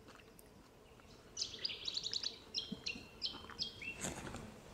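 A small bird calling in the bush: after a quiet first second and a half, a run of short, high chirps and whistled notes that step up and down in pitch for about two seconds.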